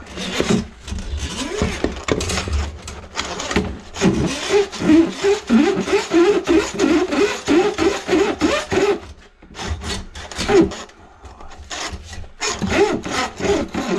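Drum-type drain-cleaning machine running, its spinning cable rasping and scraping in a kitchen sink drain line plugged with grease, with a rhythmic rasp about three times a second in the middle. The noise drops off briefly twice near the end.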